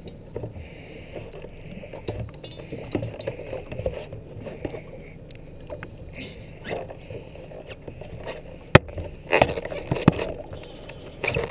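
Steady noise of water and wind around a small fishing boat's deck. About nine seconds in comes a sharp knock, then a few louder thumps and scrapes as the deck-mounted camera is bumped and shifted.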